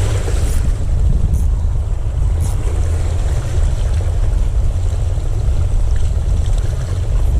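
Wind buffeting the microphone: a steady, heavy low rumble, with the wash of the sea beneath it.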